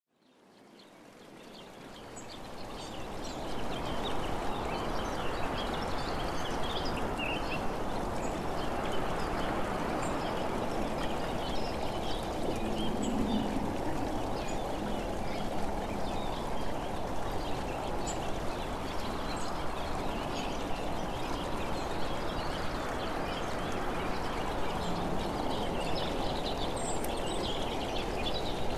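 Steady rushing outdoor noise that fades in over the first few seconds, with small birds chirping throughout.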